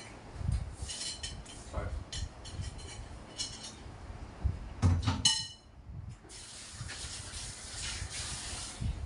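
Table and handling noises while a meal is eaten: dull knocks, a sharp clink of crockery with a short ring about five seconds in, then a steady hiss over the last three seconds.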